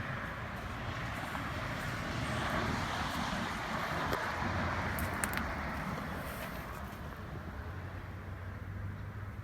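Outdoor road noise: a passing vehicle's rush swelling and then fading, with a few faint clicks about halfway through.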